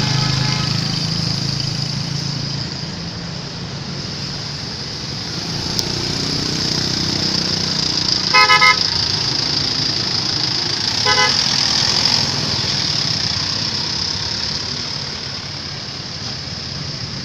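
Road traffic running past, with a vehicle horn giving a quick run of about three short toots about eight seconds in and one brief toot about three seconds later.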